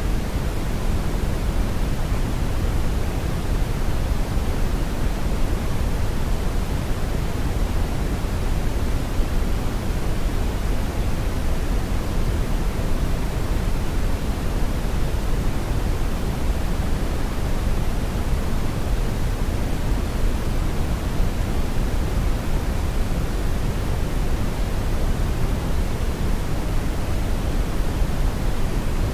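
Steady brown noise: an even, unchanging rush of noise, heaviest in the low end and fading toward the highs.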